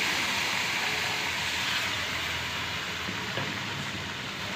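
Warm water just poured into a hot pan of ghee-roasted semolina, gram flour and sugar, sizzling with a steady steam hiss that slowly dies down.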